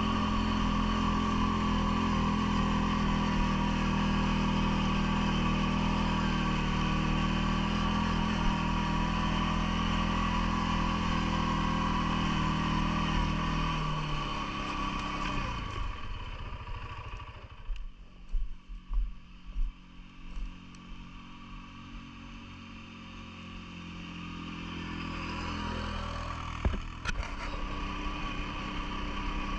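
CFMoto ATV engine running steadily, then dropping in pitch and easing off about halfway through. It stays low and quieter for several seconds, with a few loud low thumps, then picks up again near the end.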